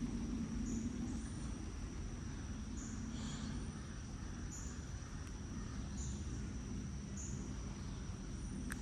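Outdoor insect chorus: a steady high thin whine with a short high chirp repeating about every second and a half, over a steady low rumble.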